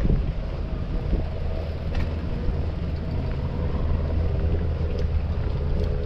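Vehicle engine running with a steady low drone, with wind on the microphone.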